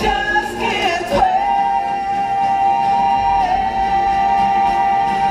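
Stage show music over the theatre's sound system, with a singer holding one long note from about a second in, dipping slightly in pitch midway.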